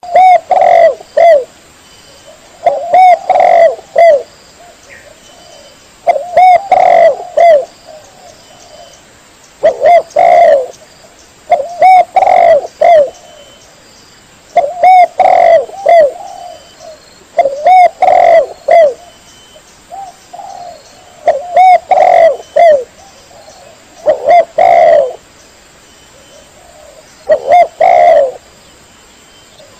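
Spotted dove (tekukur) cooing, played as a master-call recording: a short phrase of three or four coos, repeated every two to three seconds.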